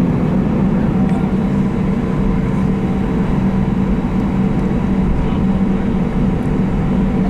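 Airbus A320's jet engines running steadily, heard inside the passenger cabin as a loud, even hum with a constant low drone over a broad rumble.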